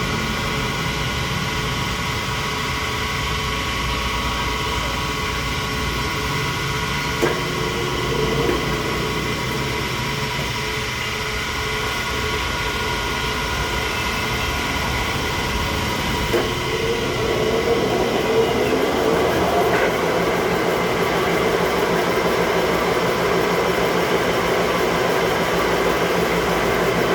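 A steady mechanical running noise with a few thin, constant whine tones, broken by a couple of sharp clicks. From about two-thirds of the way in it turns louder and rougher.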